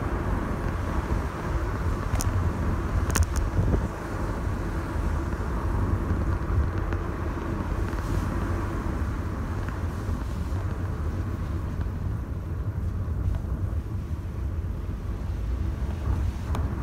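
Steady low rumble of a car's engine and tyres heard from inside the moving car, with a few brief clicks about two and three seconds in.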